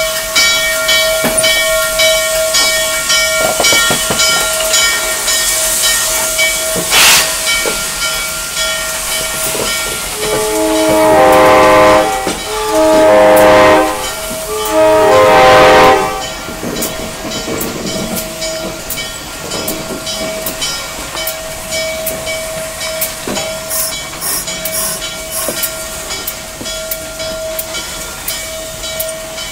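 Norfolk and Western 611 steam locomotive moving slowly, hissing steam over a steady thin whine. About eleven seconds in, its chime whistle sounds three blasts of several notes at once, the middle one the longest.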